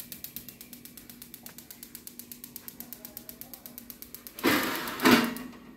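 Battery spark igniter of a Paloma gas cooktop clicking rapidly and evenly while the grill burner is being lit. A loud burst of noise comes about four and a half seconds in, and the clicking stops soon after.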